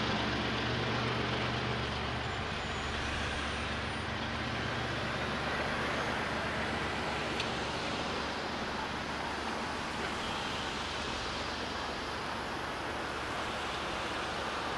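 Freight train rolling past in a steady rushing rumble, with a low locomotive-like drone in the first few seconds that fades.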